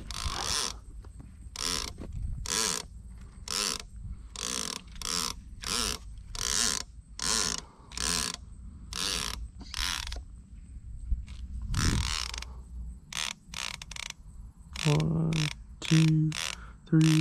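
Fishing reel's line clicker ratcheting in short rasping bursts, roughly one a second, while the rod sits untouched in its holder: a fish is pulling line off in spurts. A few short low hums near the end.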